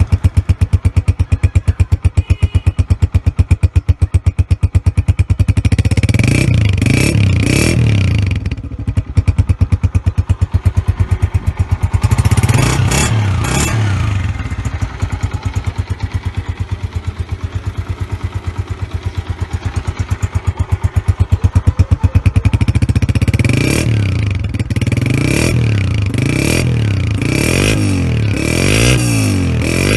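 Honda CG125's single-cylinder four-stroke engine through a loud Lahori aftermarket silencer, idling with an even, thudding exhaust beat. It is revved briefly about six seconds in and again about twelve seconds in, then blipped repeatedly in quick succession near the end.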